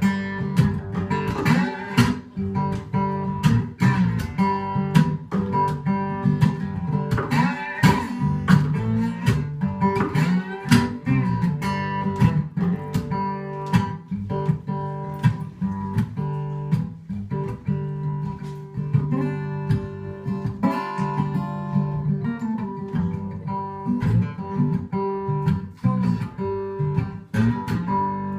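Acoustic guitar playing an instrumental blues passage in open G tuning, with dense plucked and strummed notes ringing over a steady bass.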